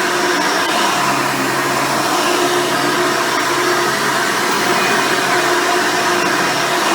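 Hoover Elite upright vacuum cleaner running steadily while vacuuming, with its original 7-amp motor, 7-blade fan and single-row brush roll: a constant rush of air with a steady motor whine over it.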